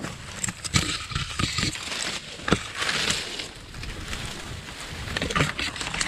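Leaves and twigs rustling and crackling as someone pushes through dense brush, with scattered sharp snaps.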